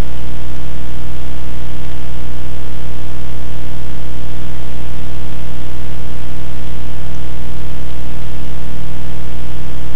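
Loud, steady electrical hum with a hiss over it, unchanging throughout: mains hum picked up in the microphone or recording chain.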